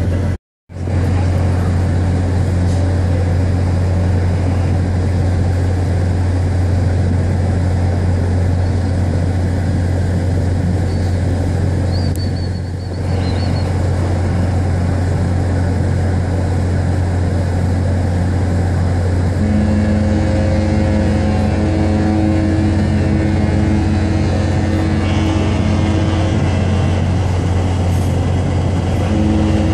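Cruise ships' horns in a horn exchange: a very deep horn held steadily, joined about two-thirds of the way through by a second, higher-pitched horn that also holds steadily. The sound cuts out for a moment just after the start.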